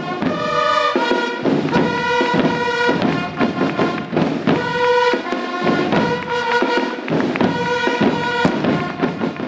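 A band playing a processional march: held chords over a steady drum beat.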